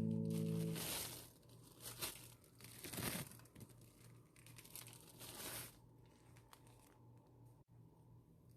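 Background music ending about a second in, followed by faint crinkling and rustling in a few short bursts, the loudest about three seconds in.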